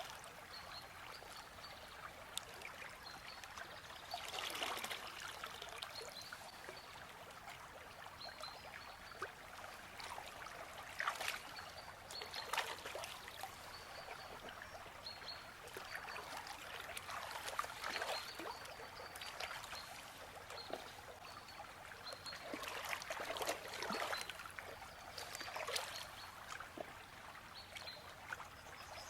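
River water trickling and splashing in uneven swells, with a small bird repeating short, high chirps every second or two.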